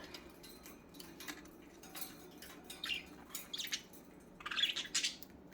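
Budgerigars giving short, soft chirps now and then, with light clicks and taps between them; the chirps come closer together near the end.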